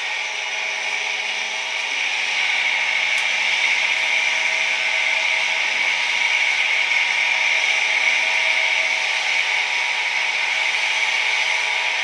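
A steady mechanical whir with a strong hiss, with several steady tones running through it; it gets a little louder about two seconds in.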